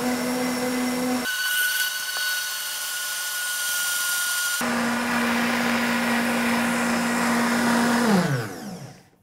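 Optimum 9200 high-speed blender running on high, blending chia seeds and almond milk. Its steady motor note changes abruptly twice, then it winds down in a falling whine and stops near the end.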